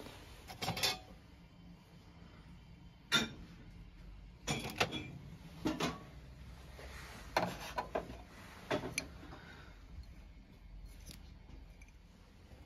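Crockery and glassware clinking and knocking as items are picked up and moved about, about half a dozen sharp clinks spread irregularly over a faint steady background.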